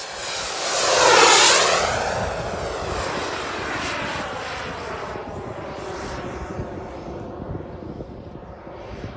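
Radio-controlled F-22 Raptor model jet's single JetsMunt 250 turbine engine passing close overhead. It is loudest about a second in, then runs on steadily as the jet flies off, slowly fading.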